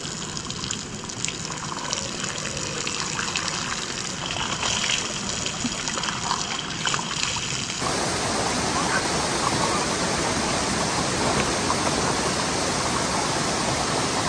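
Running water: a thin stream of falling water splashing, then about eight seconds in a steadier, fuller rush of a flowing river.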